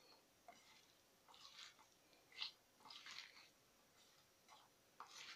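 Faint wet squelching of hands kneading a chopped tomato, onion, pepper and carrot stuffing in a stainless steel bowl, in several short bursts, the strongest about halfway through.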